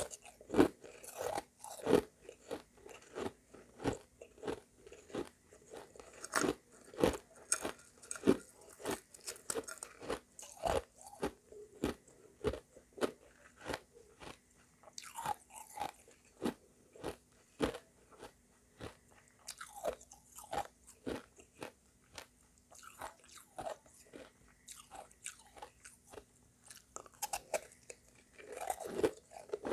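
Close-up crunching of hard refrozen shaved ice mixed with crushed ice, bitten and chewed: a steady run of sharp crunches, one or two a second.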